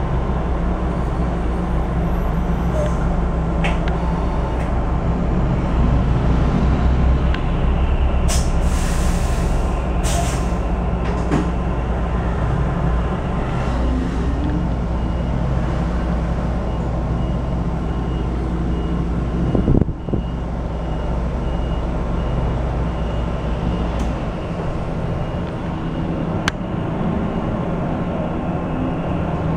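Cabin sound of an RAC EV Race 150 electric bus driving in city traffic: a steady low hum and road noise, with the electric motor's whine rising in pitch twice as the bus picks up speed. Two short hisses come a little after a quarter of the way in, and there is a single knock about two-thirds through.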